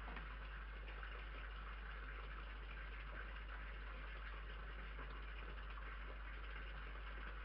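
Steady hiss and low hum from a security camera's microphone, unchanging throughout.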